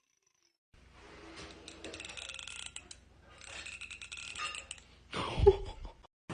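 Teeth of a hand-held comb being strummed with a fingertip: a fast, raspy run of clicks in two strokes, the kind of sound that sets some cats licking their lips and gagging. A brief louder sound follows about five seconds in.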